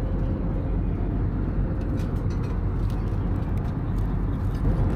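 Steady low rumble of a jet airliner's cabin noise: engines and air flow heard from inside the cabin.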